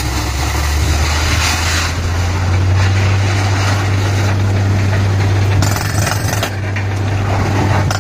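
Truck-mounted borewell drilling rig running and drilling: loud, steady engine drone under a heavy hammering, grinding din from the drill rod working in the bore, with a brief dip about six and a half seconds in.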